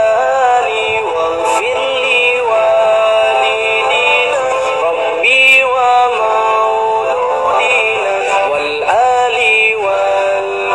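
Man singing an Islamic devotional song (nasheed) in long held notes that bend and waver in pitch.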